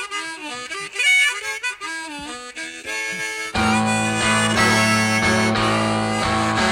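Blues harmonica solo, playing bent single notes over sparse backing. A little over halfway through, the full band comes in louder with a heavy bass line under sustained harmonica notes.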